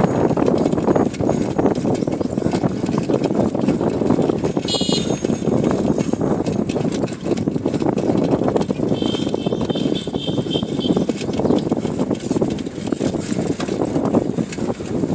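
Wind rushing over the microphone with road noise while riding a motorcycle, a steady loud rush. A short high chirp comes about five seconds in, and a thin whistling tone near ten seconds.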